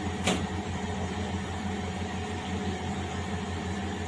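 Electrolux industrial washing machine running its final spin, a steady mechanical hum with a short click just after the start.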